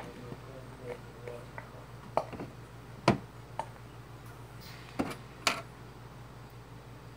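A squeezed plastic glue bottle and a plastic tub being handled: about five short clicks and taps, the loudest about three seconds in, over a steady low hum.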